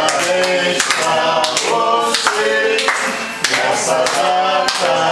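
A group of people singing a birthday song together in Portuguese, clapping along in time.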